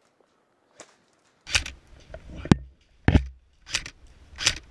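Hurried footfalls on dirt with gear jangling, roughly one stride every two-thirds of a second, as an airsoft player moves to a new position. They start about a second and a half in, after a near-silent start.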